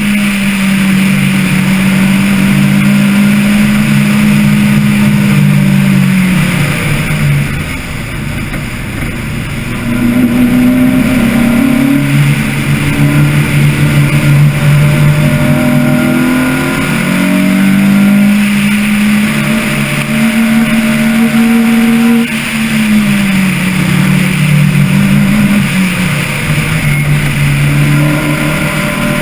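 Onboard sound of a motor vehicle's engine under way at speed. The engine note holds steady, falls away twice as the throttle eases (about a quarter of the way in and again near three-quarters), then climbs again. A steady rush of wind and road noise runs underneath.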